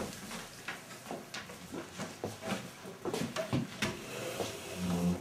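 Chairs shifting and feet shuffling on a wooden floor as people stand up from a table: a run of irregular small knocks, creaks and clicks with light rustling between them.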